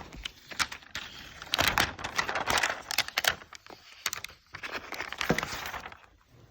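Laptop packaging being handled and opened: crinkling, rustling paper and plastic with scattered small clicks, coming in two louder spells.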